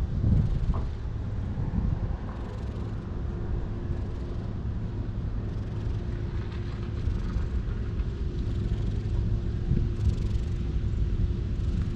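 Tabby-and-white cat purring steadily close to the microphone while it is stroked, a continuous low purr.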